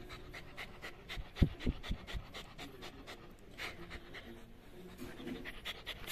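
Three-month-old Labrador puppy panting quickly with its mouth open, short breaths several a second. A few low thumps about a second and a half in, the first of them the loudest sound.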